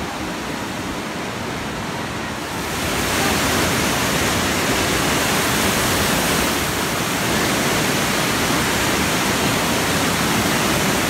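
Fast whitewater of a rocky mountain river rushing and churning over boulders, a steady rush of water that swells louder about three seconds in.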